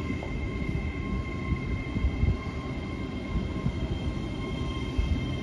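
Great Western Railway passenger train at the station: a steady low rumble with several steady high tones over it, and a few low thumps.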